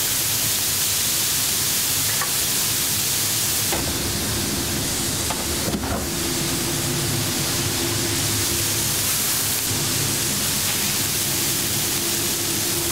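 Smashed beef patties sizzling steadily on a flat-top steel griddle, an even hiss, with a kitchen hum underneath; a steady low tone joins about four seconds in.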